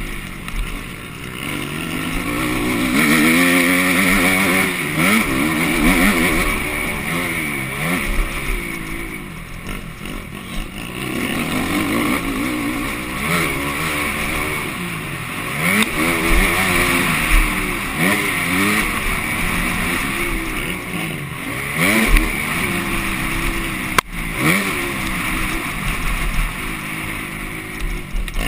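Motocross bike engine heard from on board, revving up and falling back again and again with throttle and gear changes. There is one sharp knock late on.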